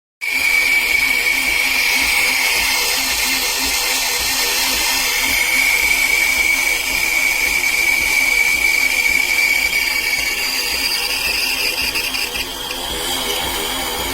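Ninja Luxe Café espresso machine running, a steady mechanical whir with a high whine and hiss that starts suddenly.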